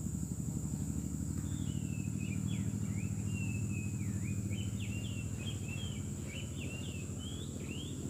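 Oriental magpie-robin (kacer) song: a varied run of short whistles and slurred notes that starts about a second and a half in and carries on to the end. Under it are a steady high whine and a low rumble.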